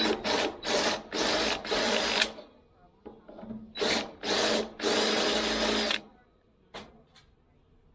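Cordless drill running in short trigger bursts as it drills a hole through the sheet-steel wall of an offset smoker. About four bursts come first, then a pause of a second and a half, then three more, the last about a second long.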